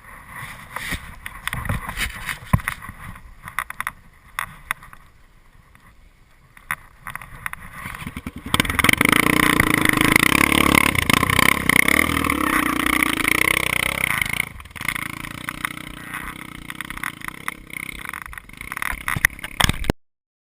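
Trail motorcycle engine off-road, with gusty wind noise at first. About eight seconds in the engine comes in loud and close, running steadily, and about fourteen seconds in it drops to a quieter steady note.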